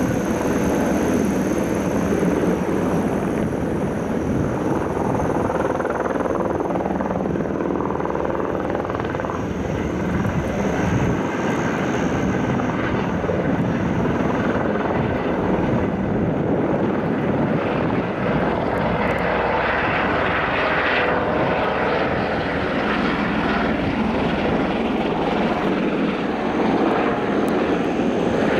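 Airbus H130 helicopter with its single turboshaft engine and main rotor running at flight power, a loud, steady, dense drone with a thin high whine, as it lifts off into a low hover near the end.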